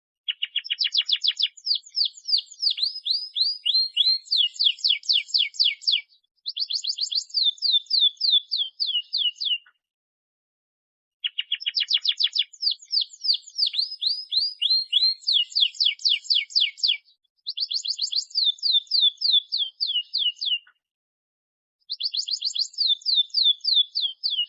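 Domestic canary singing in long phrases of rapid, repeated downward-sweeping notes, with short silent breaks between phrases; the same run of phrases comes round again about eleven seconds later. This is a vigorous 'gacor' song used as a lure to set other canaries singing.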